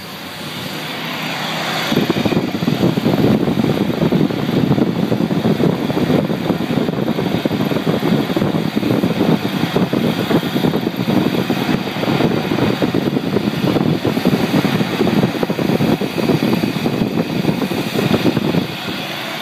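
Chevy S10's 2.8 L V6 with throttle-body injection, revved by hand at the throttle. It comes up sharply about two seconds in, runs loud and held up for most of the stretch, then drops back near the end. The engine has a high idle and is unresponsive to throttle, which the owner blames on a throttle position sensor reading zero.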